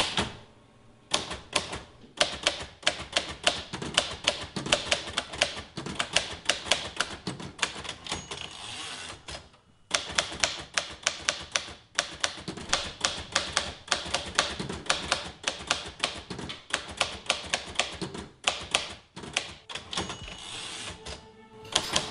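Royal manual typewriter keys striking in fast runs, broken by a few short pauses, with music underneath.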